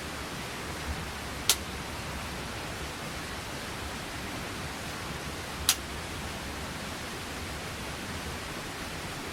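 Steady hiss with two short, sharp clicks, one about a second and a half in and one past the middle.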